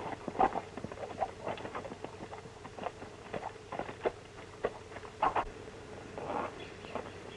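Scattered, irregular knocks and clicks, like footsteps and handling noises from a film scene, over a faint steady hum of an old film soundtrack.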